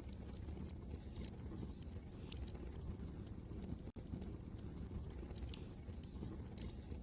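Wood fire crackling in a fireplace, irregular sharp pops and snaps over a steady low rumble of wind. The sound cuts out for an instant about four seconds in.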